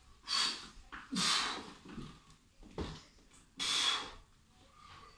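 A man breathing hard and forcefully while pressing a kettlebell overhead, with three loud, hissing breaths and a weaker one in between, in rhythm with the lifts.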